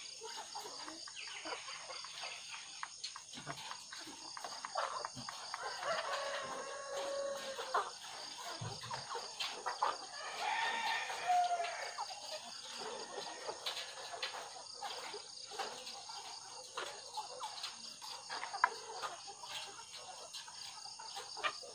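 Caged ready-to-lay hens clucking, with two longer drawn-out calls about six and ten seconds in. Scattered light clicks and a steady high-pitched hum run underneath.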